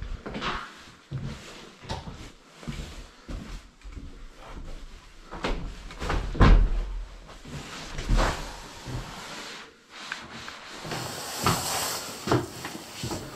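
Knocks and thumps of a wooden door being opened and handled, the loudest about six and a half seconds in and another about eight seconds in, with a rustle near the end.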